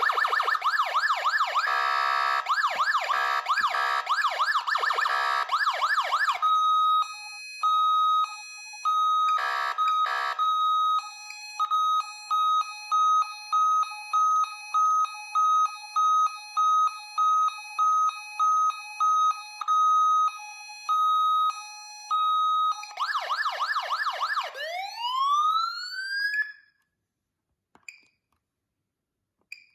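Code 3 Z3 electronic siren running through several tones. It opens with a fast warbling tone, then switches to a hi-lo tone alternating between a high and a low pitch. Near the end comes a tone rising steadily in pitch that cuts off, followed by about three seconds of silence.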